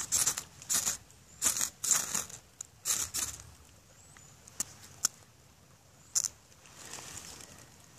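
Ferrocerium rod scraped hard with a steel striker, about six quick rasping strokes in the first three seconds, throwing sparks that light fatwood shavings. A few sharp clicks follow.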